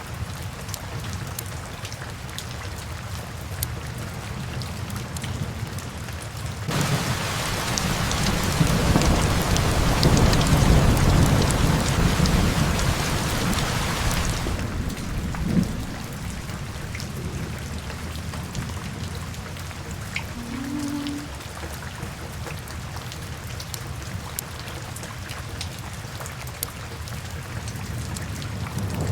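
Steady rain with a roll of thunder. About seven seconds in the rain swells suddenly and a deep rumble builds for several seconds, then fades back to the steady rain.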